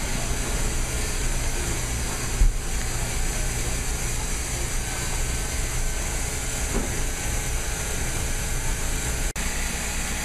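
Steady hum and hiss of automated seeding-line machinery running, with a brief thump about two and a half seconds in and the sound cutting out for an instant near the end.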